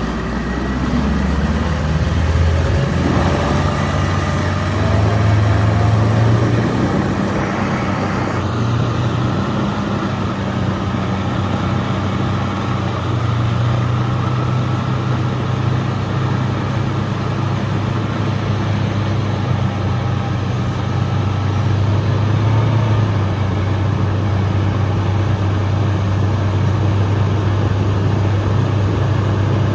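Mercury 150 outboard motor pushing a boat, climbing in pitch over the first few seconds as it speeds up, then running steadily at speed.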